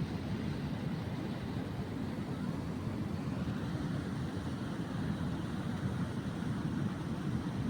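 Steady low rumble of a fishing boat under way, its engine and the rush of wind and water blending into one even noise.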